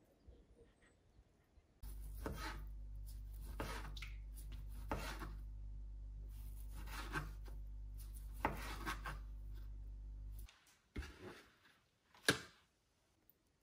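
Slow scraping, rubbing strokes of kitchen food preparation on a wooden board, about one every second or so, over a steady low hum. The hum cuts off suddenly near the end, followed by two light knocks.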